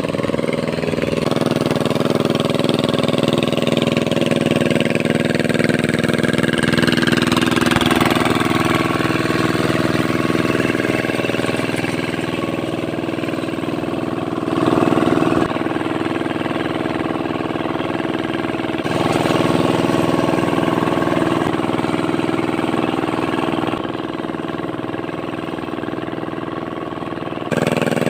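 Hand tractor (power tiller) engine running steadily as it tills a flooded rice paddy. Its level steps up and down abruptly a few times.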